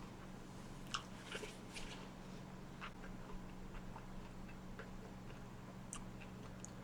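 Faint, scattered mouth clicks and ticks from quietly chewing food, over a low steady hum.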